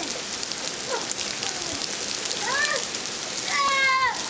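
Steady rain pouring down, an even hiss of falling water. A child's high voice gives two short calls about two and a half and three and a half seconds in.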